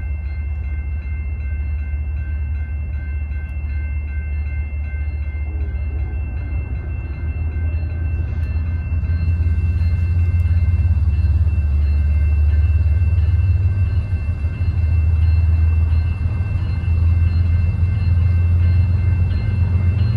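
Passing train's diesel locomotives rumbling, with a few steady high tones above the rumble; it grows louder about halfway through.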